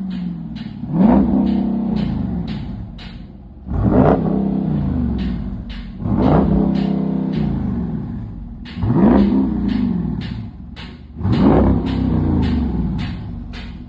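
2026 Dodge Durango's engine and exhaust revved five times, about every two and a half seconds: each rev climbs quickly and falls back slowly to idle.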